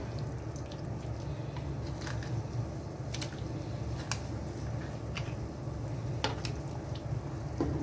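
Chicken braising in boiling soy sauce liquid in a pot: a steady low rumble with scattered sharp pops and ticks about once a second.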